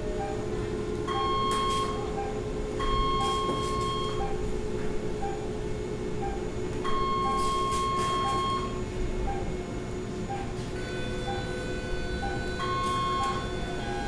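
Hospital machine beeps over a steady electronic drone: a short beep repeats about once a second, and a longer, higher beep tone sounds four times, each held for about a second, with a hiss alongside it.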